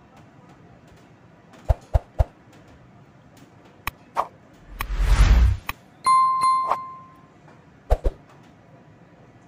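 Subscribe-button animation sound effects: a few sharp clicks, a short loud whoosh about five seconds in, then a bell ding that rings out and fades over about a second, with one more click near the end.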